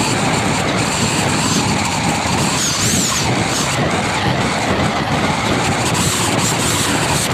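Steady, loud rushing road and wind noise from a vehicle travelling along a highway.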